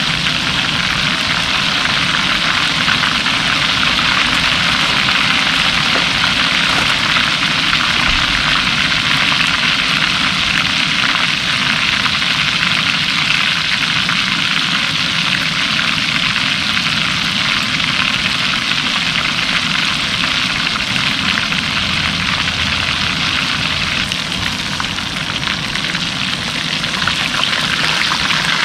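Battered fish frying in a skillet of hot oil: a steady, loud sizzle that dips briefly near the end.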